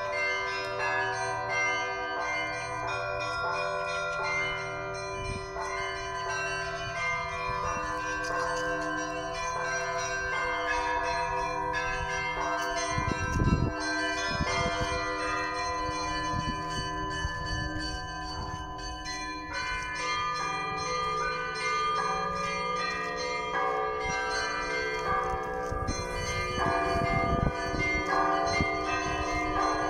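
Several church bells of different pitches ringing together in a continuous peal, with new strikes layering over the hum of earlier ones.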